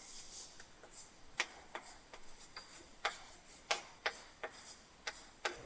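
A run of light, sharp taps and clicks at irregular intervals, about eight in all.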